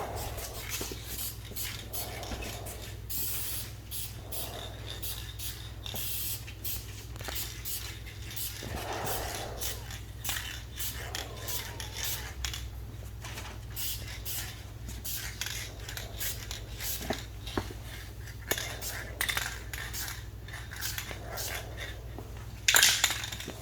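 Aerosol spray-paint can applying a candy coat in short, irregular spritzes and clicks, ending in a longer, louder burst of spray near the end. A steady low hum runs underneath.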